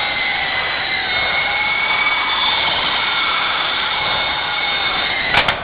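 Syma S033G radio-controlled coaxial helicopter in flight, its electric motors and rotors making a steady whine whose tones drift slightly in pitch, running on freshly replaced small drive gears. A couple of sharp clicks come near the end.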